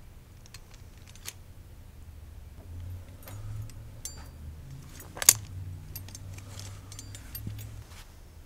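Steel coil spring foothold trap being handled: scattered metal clicks and chain rattles as its levers are compressed and its jaws worked open, with one sharp, loud metallic clack about five seconds in.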